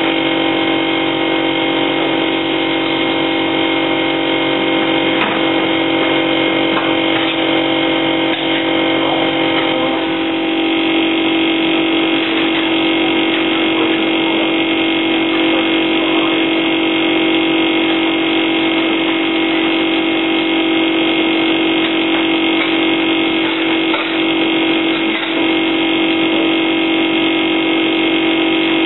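Steady hum of commercial kitchen machinery, such as extraction fans and running appliances: a constant low drone with several steady higher tones above it, and now and then a faint clink of utensils.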